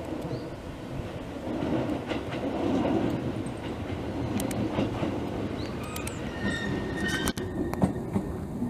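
JR Kyushu limited express Nichirin electric train running along the station platform: a steady rumble of wheels on rail that grows louder about two seconds in, with clicks at the rail joints and a few short high squeals near the end.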